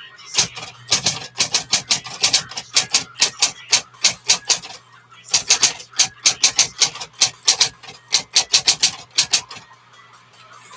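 A 1960s Smith-Corona Coronet Electra 12 electric typewriter being typed on: rapid runs of key strikes, several a second, with a short pause about halfway and a stop near the end. A steady low hum sits underneath.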